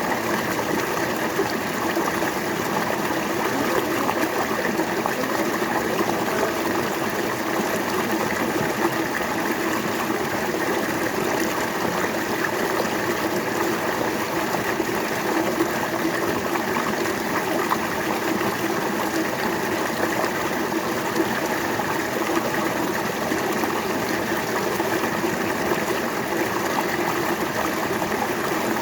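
River water flowing over rocks in a steady, even rush with some babbling.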